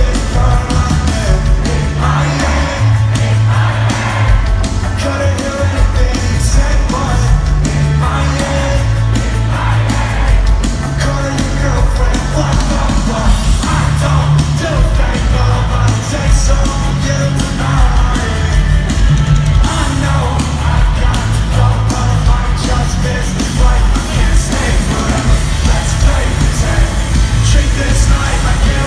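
Live rock music with a singer, loud and dense, with a heavy bass line and drums.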